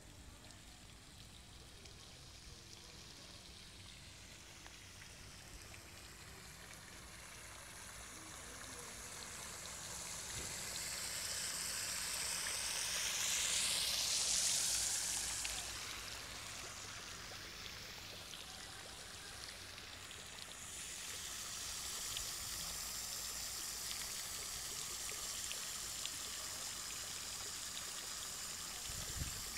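A steady rushing noise like running water. It grows louder to a peak about halfway through, with a sweeping, whooshing change in tone, then settles back to a steady level.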